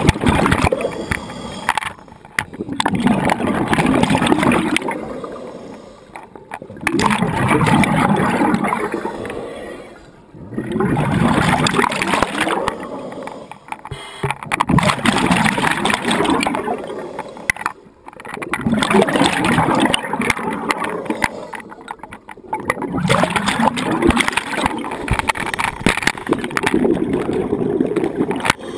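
Scuba diver breathing through a regulator underwater: exhaled bubbles gurgle and rumble in repeated bursts about every three to four seconds, with short pauses between breaths.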